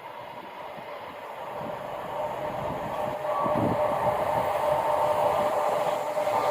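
A Class 70 diesel-electric freight locomotive approaching, its engine and wheels on the rails growing steadily louder, with a steady hum coming through near the end.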